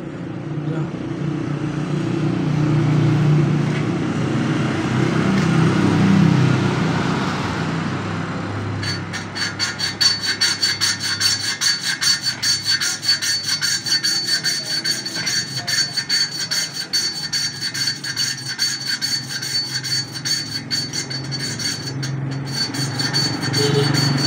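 A valve being lapped by hand into its seat in a small air-cooled engine cylinder head: gritty metal-on-metal rubbing. It starts as a duller, lower rubbing and about nine seconds in turns into fast, regular scraping strokes.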